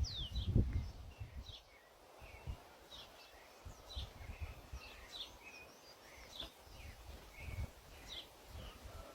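Small birds chirping outdoors, with many short, high calls that sweep downward in pitch, repeated every half second or so. Under them is a low rumble, strongest in the first second, then faint.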